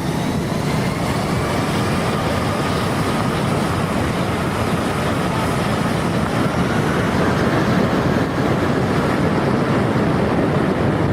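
Steady, loud engine roar mixed with rushing air, with a faint whine slowly rising in pitch.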